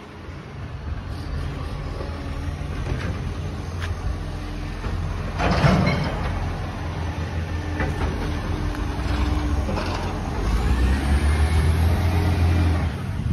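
Recycling truck's diesel engine running with a steady low rumble, a short burst of hiss about halfway through, and the engine growing louder near the end.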